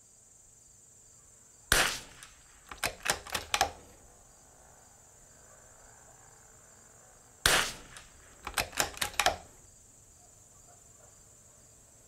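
.22 LR bolt-action precision rimfire rifle fired twice, about six seconds apart, each sharp crack followed about a second later by a quick run of clicks as the bolt is cycled to chamber the next round.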